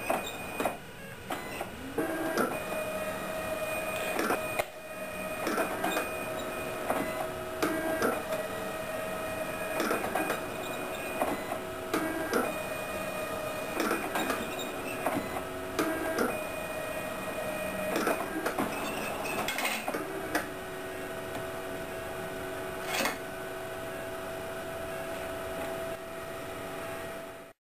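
Fargo C50 ID card printer printing a test card: a steady motor whine with other tones that step on and off every second or so, and frequent clicks and clunks as the card is fed and moved through the printer.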